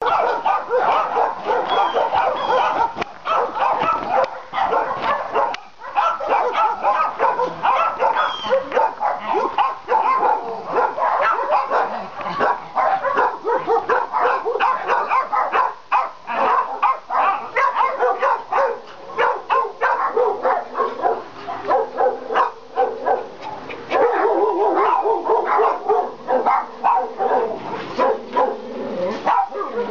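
Many kennelled dogs barking at once, with overlapping barks running on without a break.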